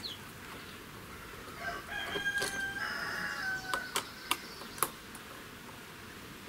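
A rooster crows once, about two seconds long, starting a second and a half in. Several sharp clicks follow near the middle.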